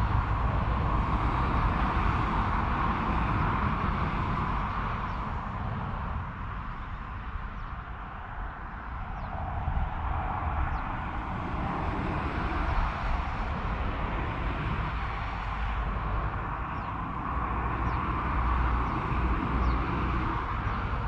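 Steady rumble and hiss of distant road traffic, swelling and fading slowly as vehicles pass.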